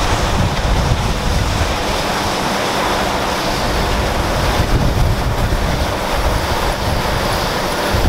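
Allis-Chalmers Gleaner M2 combine running under load as it harvests soybeans: a steady drone from its engine and threshing works, with wind rumbling on the microphone.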